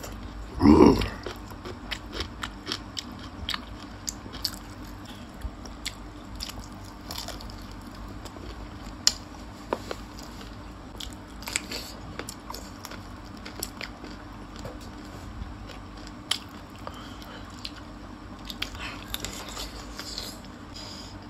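Close-up eating sounds: crisp pani puri being bitten and chewed, with one loud mouth sound about a second in followed by scattered crunchy clicks and chewing.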